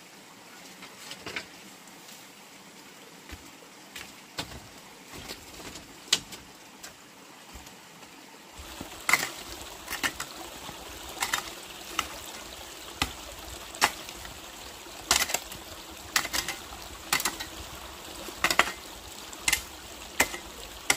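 Sharp knocks, a few scattered at first, then settling into about one strike a second from about nine seconds in, over a steady background hiss.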